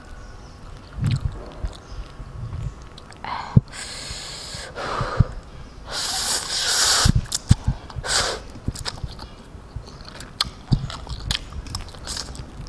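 Close-miked eating: instant noodles slurped in several hissing draws, the longest and loudest about six seconds in, with wet chewing and small clicks between.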